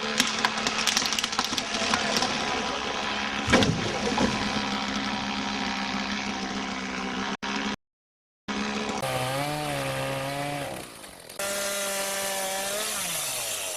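Chainsaw engine running at high speed, with a sudden loud sound about three and a half seconds in. After a brief dropout the saw's note wavers up and down, then holds steady and falls away near the end as the throttle is released.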